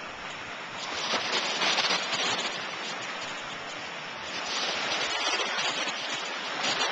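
Small waves lapping and washing onto the shore, a steady hiss that swells twice, about a second in and again toward the end.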